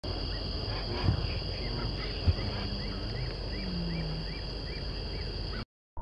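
Marsh ambience: a steady high insect drone, with a short chirping call repeated about twice a second and two soft knocks. It cuts off suddenly near the end.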